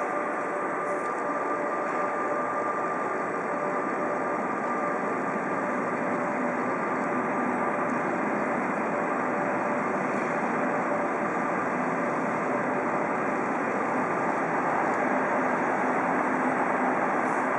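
DR Class 23.10 steam locomotive standing in steam, giving a steady hiss with faint steady whining tones through it; the hiss swells slightly near the end.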